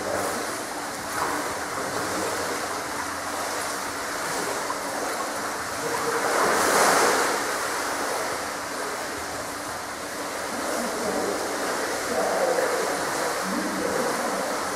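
Pool water splashing and churning as a swimmer strokes through it, swelling louder for a moment about halfway through.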